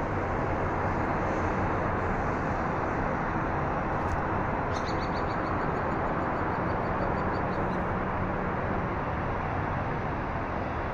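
Steady rushing outdoor background noise. About halfway through, a bird gives a rapid series of high calls, about five a second, for roughly three seconds.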